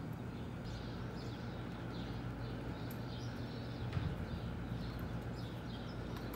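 Small birds chirping in quick, repeated high calls over a steady low hum, with a single low thud about four seconds in.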